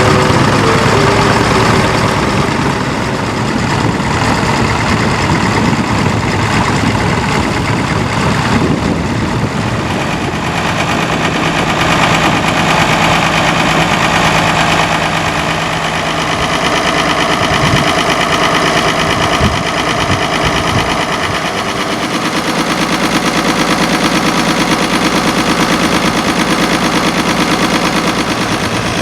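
Diesel and petrol engines of vintage tractors and crawlers running, settling into a steady, evenly pulsing idle in the last several seconds.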